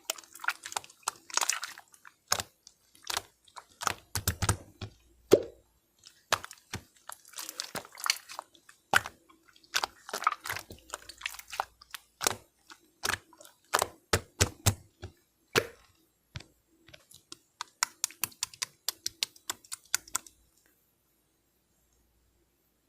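Close-up crunchy chewing and mouth sounds: irregular crackles and clicks that stop about three seconds before the end.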